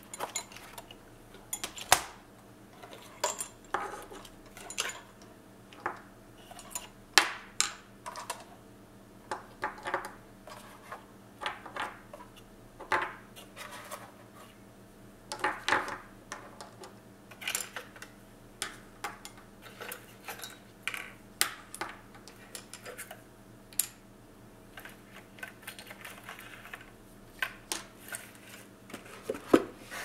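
Small metal objects—brass wax-seal stamps with wooden handles and a copper wax-melting spoon—being picked up and set down on a table one after another: irregular clinks and taps, some sharper than others.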